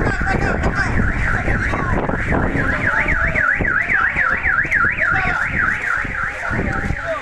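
Car alarm siren warbling rapidly up and down several times a second, loudest in the middle, over a low rumble of wind and handling on the microphone.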